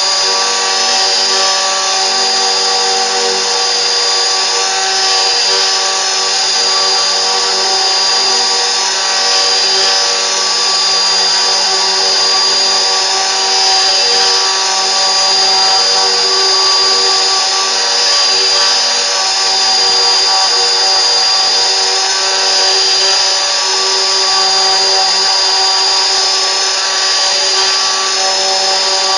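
CNC router spindle running steadily: a constant whine made of several held tones over a dense hiss.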